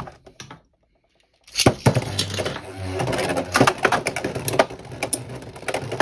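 A few small plastic clicks, then about a second and a half in Beyblade spinning tops are launched and spin, clattering and clacking against each other continuously.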